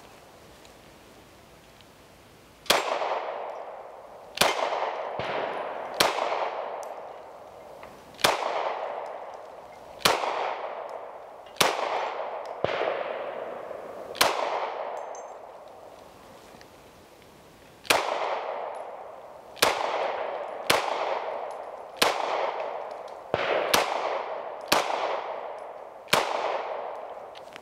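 A Walther PDP F 9mm pistol fired at a slow, steady pace: about fifteen single shots, each followed by a short echo, starting about three seconds in, with a pause of a few seconds midway.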